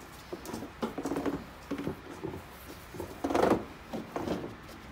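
Plastic wheel-well liner being pushed and worked into place by hand: irregular scrapes, rubs and short creaks of plastic, the loudest a little past halfway.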